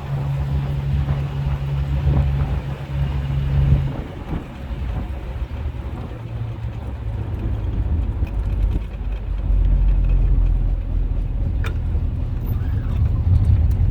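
A 1967 AMC Rambler American's 199 cubic-inch inline-six running on the road, with a steady low engine note. The note drops about four seconds in and then slowly builds again toward the end. The engine runs smoothly now that the vacuum leak from a cracked phenolic carburetor spacer is fixed.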